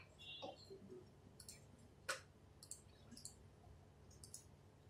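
Near silence broken by a few faint, scattered clicks, the clearest about two seconds in.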